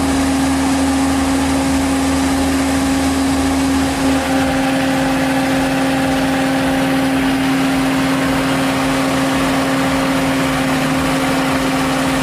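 An engine running steadily at constant speed, with a strong unchanging drone and a brief dip about four seconds in.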